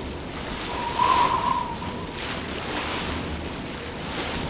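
Strong, gusty wind and choppy waves on open water, rising in swells, with a wavering whistle of wind about a second in.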